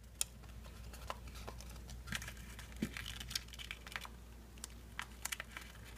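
A folded paper airplane being handled while a strip of sticky tape is pressed along its fuselage: faint, scattered crinkles and small clicks of paper and tape.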